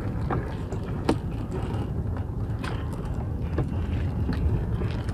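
Small boat's engine running steadily with a low rumble, and a few sharp knocks on the boat.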